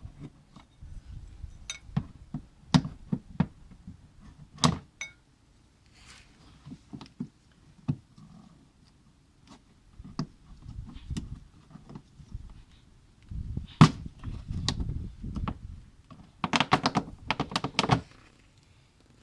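Plastic inner wheel-arch liner being worked loose and pulled out of a car's front wheel bay: irregular knocks and sharp clicks of the panel and its clips, a stretch of plastic scraping past the bodywork, and a quick run of rattling clicks near the end.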